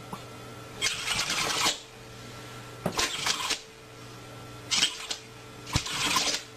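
A run of four short, sharp sneezes about one to two seconds apart, over a steady low hum.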